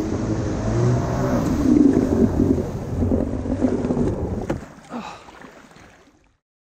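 Two-stroke twin engine of a 1989 Kawasaki 650 SX stand-up jet ski running under way, its pitch rising and falling with the throttle. The engine sound drops away about four and a half seconds in and fades out.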